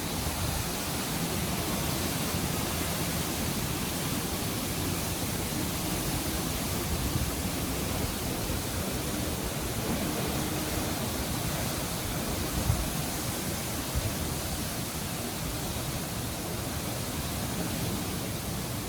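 Quite strong wind blowing through banana and small bamboo trees: a steady, even noise that hardly changes in level.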